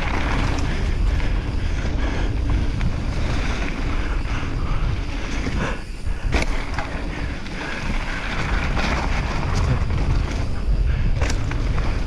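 Mountain bike descending a dirt trail: wind buffets the GoPro's microphone over a steady rumble from the tyres on the ground. Now and then a sharp knock or rattle comes from the bike going over bumps.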